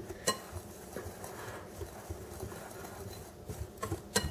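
Wire whisk stirring a dry flour mixture in a bowl: a faint scraping rustle, with sharp clicks of the whisk against the bowl, one near the start and a few near the end.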